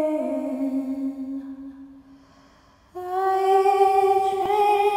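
A woman humming long, wordless held notes. The first note slips slightly lower and fades away by about two seconds in. After a short near-silent gap, a higher note starts abruptly about three seconds in and is held steadily.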